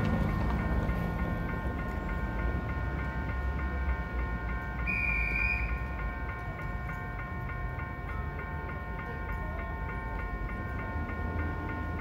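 Level-crossing warning bells ringing steadily over the low rumble of a passing train, with a brief high squeal about five seconds in.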